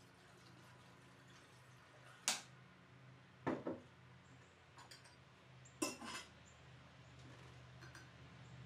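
Glass jar and its metal lid knocking and clinking on a table as the jar is set down and closed, a few sharp clinks, the loudest about two seconds in and just before six seconds.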